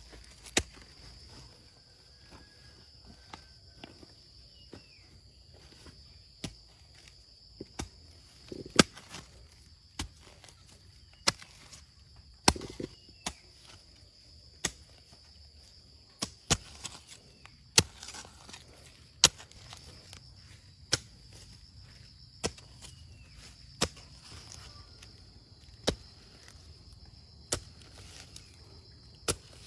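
A hand tool striking again and again, sharp single hits roughly every second or two at an uneven pace, with a steady high insect drone behind.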